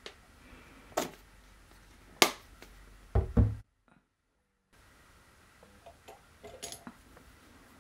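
Handling sounds of a plastic paint bottle: a couple of sharp clicks as it is squeezed, then a thud as it is set down on a wooden table. After a second of dead silence come light taps and clinks as a paintbrush is taken from a small glass jar.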